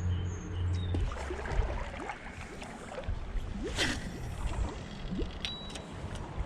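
Creek water splashing and gurgling around someone wading in the shallows, with small bubbling blips throughout and one sharper splash about four seconds in.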